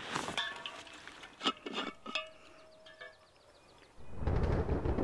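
Thunder rumbling, setting in suddenly about four seconds in as a deep, low rumble that keeps going. Before it there are only faint scattered clicks and thin chirps.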